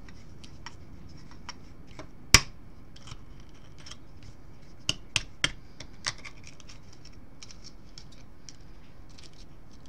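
Kitchen knife blade striking and cracking the shell of a bantam chicken egg: one sharp crack a little over two seconds in, then four quick cracks around five to six seconds, with small faint ticks of shell in between.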